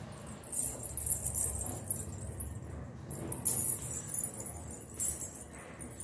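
Silver anklets (payal) with small bells jingling as the bare feet step and swing, in bursts of about a second with short breaks between.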